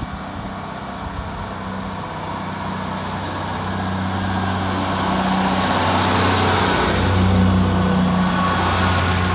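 Class 158 diesel multiple unit pulling away and passing close by, its underfloor Cummins diesel engines running under power with a steady low drone over wheel and rail noise. It grows louder as the train comes alongside and is loudest about seven seconds in.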